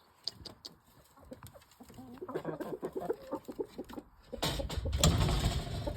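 A flock of chickens clucking, with a run of short, quick clucks from about two seconds in. Near the end a loud rushing, rustling noise comes in over them.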